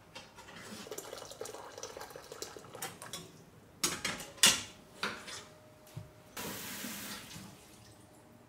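Water splashing into a steel saucepan at a gas stove, with several sharp clanks of the metal pot and kettle about four to five seconds in, the loudest of them near the middle, then about a second of tap water running into the pot near the end.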